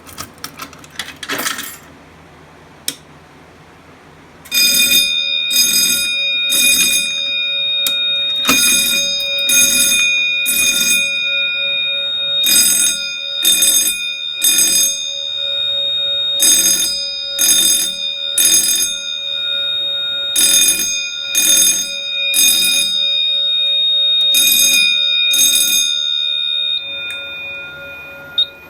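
A fire alarm pull station being key-activated, a few clicks and a rattle, then about four seconds later fire alarm notification appliances sound. Loud blasts come in groups of three, the temporal-three evacuation pattern, over a steady high tone, and the blasts stop near the end, followed by a click.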